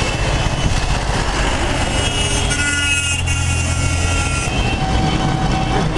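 Road traffic heard from a moving vehicle: a steady rush of engine and road noise, with trucks and auto-rickshaws passing close by.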